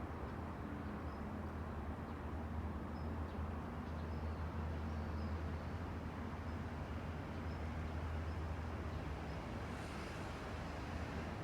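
Steady outdoor ambience of distant road traffic and wind: a constant low rumble under an even hiss, with faint short high chirps every second or so.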